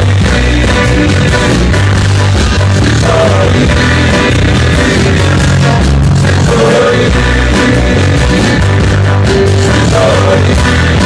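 Live band music with singing: electric and acoustic guitars over a steady bass line, played loud without a break.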